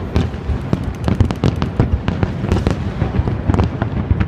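Fireworks display: a rapid, dense run of bangs, several a second, thickest in the middle, over a continuous low rumble of distant explosions.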